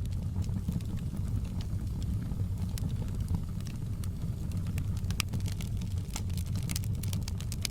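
Wood fire burning in a fireplace: a steady low rumble with frequent sharp crackles and pops, coming more thickly near the end.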